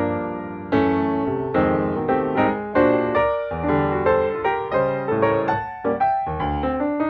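Background piano music: a melody of struck notes that ring and fade, one after another.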